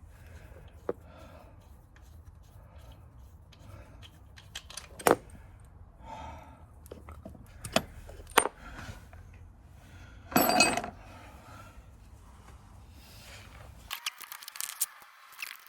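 Hand tools and metal engine parts clinking and scraping: several sharp single clinks, then a louder metallic clatter about ten seconds in. A steady low hum underneath cuts off abruptly near the end.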